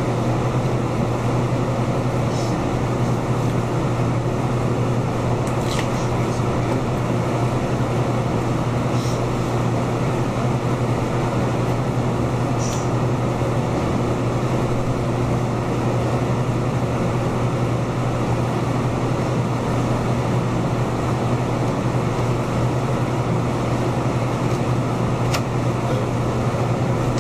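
Steady mechanical hum with a strong low drone and an even hiss, broken only by a few faint clicks.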